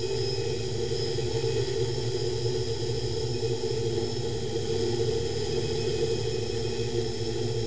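DIY OK-3 octocopter's eight brushless motors and propellers running steadily in flight, picked up by a camera on the airframe: an even hum with several steady tones over a rushing noise.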